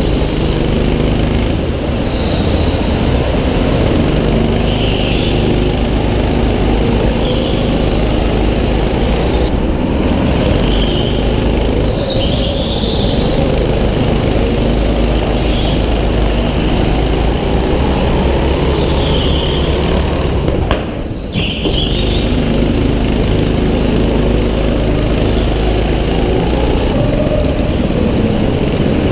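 Kart's small petrol engine heard from onboard, its pitch rising and falling with the throttle through the corners of an indoor track. Short high tyre squeals come and go in the turns, and the sound breaks off briefly about twenty-one seconds in.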